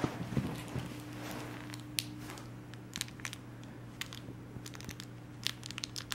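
Pembroke Welsh Corgi puppy chewing and tugging at a plush toy: scattered soft crunches, crinkles and clicks of teeth and fabric.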